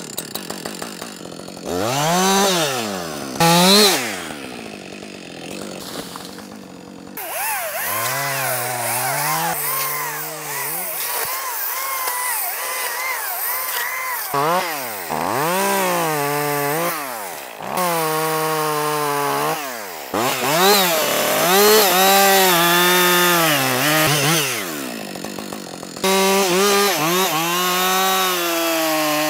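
Two-stroke chainsaw engine running hard, its pitch dropping and climbing again over and over as the throttle is worked, in several short clips joined by abrupt cuts.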